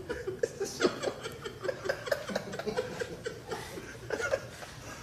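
Soft, broken chuckling and laughter, mixed with small irregular clicks and taps.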